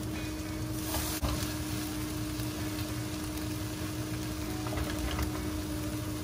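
Wooden spatula stirring and scraping a thick onion masala in a nonstick frying pan on a gas stove, with a couple of light knocks about a second in. A steady low mechanical hum runs underneath and is the loudest thing heard.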